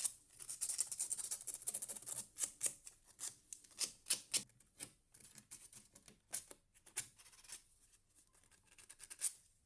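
180-grit sandpaper rubbed on the stripped ends of copper electrical wires in short, quiet, irregular scratchy strokes, which come thicker in the first half and sparser later.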